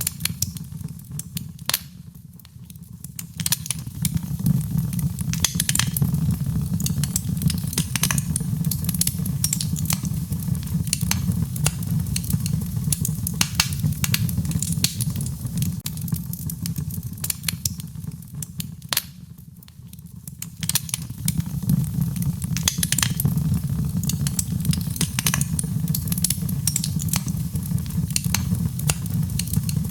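Wood fire crackling in a fireplace: frequent sharp pops and snaps over a steady low rumble of flame. The sound dips briefly twice.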